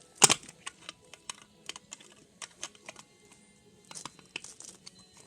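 Lego bricks clicking and clattering as pieces are handled and pressed together, with a sharp click about a quarter of a second in and scattered lighter clicks after.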